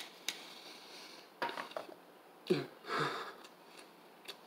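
A person's breathy sniffs: one short one about one and a half seconds in and a longer double one a second later, after a couple of light clicks at the start.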